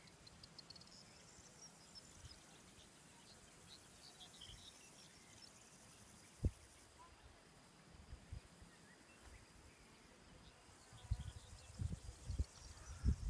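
Faint open-air countryside ambience with small, scattered high chirps of wildlife in the first few seconds. A single sharp knock comes about halfway through, and low rumbling buffets hit the microphone near the end.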